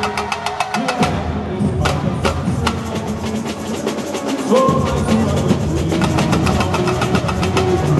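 Samba bloco batucada played live: surdo bass drums and smaller snare-type drums beating a fast, even samba rhythm, with voices singing over it through microphones. The deep drums come in much stronger a little past halfway.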